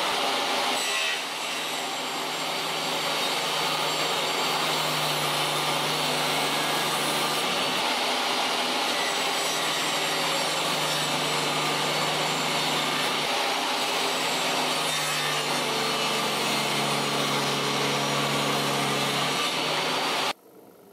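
Jobsite table saw running and ripping pallet boards lengthwise, a steady loud whine of the blade cutting through the wood over the motor's hum. It stops suddenly near the end.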